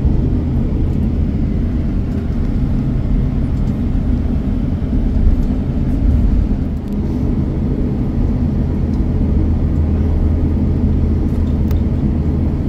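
Steady low rumble and hum of a moving vehicle, heard from inside it.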